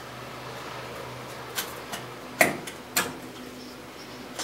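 Several sharp metal clicks and knocks as the front half of a GM 10SI/12SI alternator's case is pulled off, the loudest about two and a half seconds in, over a faint steady hum.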